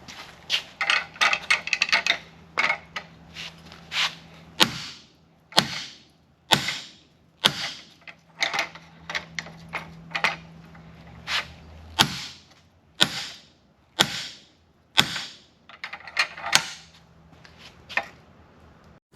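Hand hammer striking the top butcher die of a smithing magician, driving the dies into a hot mild steel bar to make offset cuts: a quick flurry of lighter taps at first, then heavy single blows about once a second with a few pauses. A low steady hum runs underneath.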